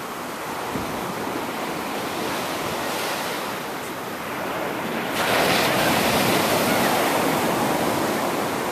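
Ocean surf washing in over a sandy beach; a wave breaks about five seconds in, and the rush of water grows louder from there.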